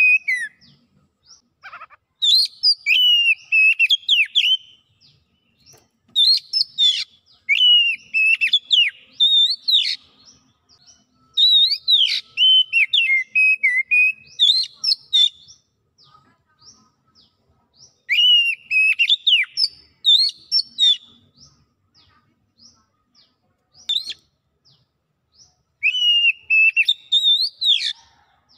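Oriental magpie-robin singing: long, varied phrases of clear whistles and quick chips, given in five bouts of a few seconds each with short pauses between them.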